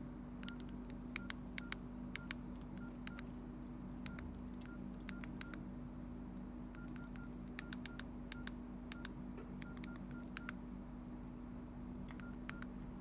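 Short, faint keypad beeps from a Nokia N82 mobile phone, one for each key press, coming irregularly in quick clusters with a pause of a second or so between groups and a last few near the end.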